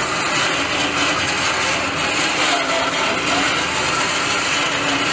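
2017 Ram Power Wagon crawling over sandstone: its 6.4-litre V8 running under a steady, gritty scraping and grinding of the tyres on rock, with a few faint short squeaks.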